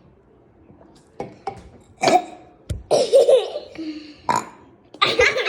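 A short hiccup burp about halfway through, followed at once by people laughing.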